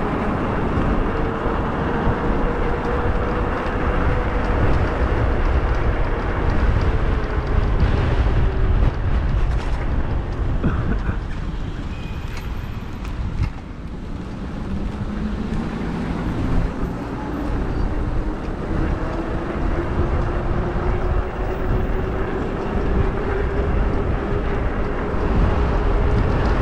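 Riding an e-bike: wind rumble on the microphone and the electric motor's whine. The whine fades out about a third of the way through, then comes back near halfway, rising in pitch as the bike picks up speed.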